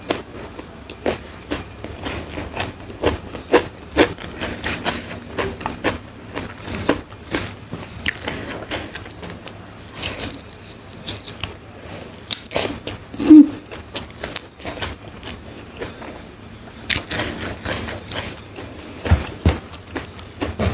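Close-miked chewing of crisp food: a steady run of irregular crunches and crackles, with a few louder sharp crunches.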